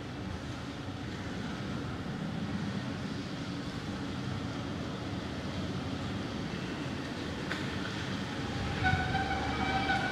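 Busy street traffic ambience: a steady low rumble of passing vehicles, with a vehicle horn sounding near the end.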